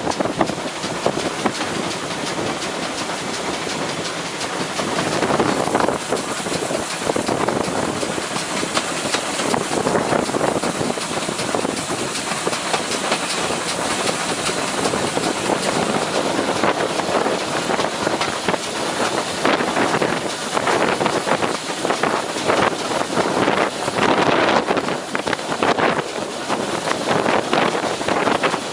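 A heritage train running on the line, a steady rumble and hiss with rapid clattering of wheels over the rails, busiest in the second half.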